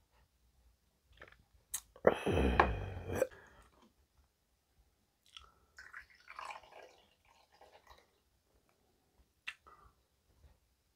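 A loud mouth sound lasting about a second, right after a shot of soju is swallowed, then soju poured from a green glass bottle into a shot glass, a trickling pour of about two seconds, and a single sharp click a little later.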